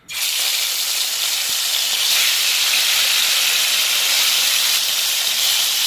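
Fish frying in hot oil, a steady sizzle.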